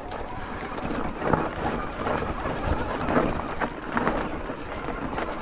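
Wind rushing over the microphone during an e-bike ride, with irregular knocks and rattles from the bike jolting over rough ground.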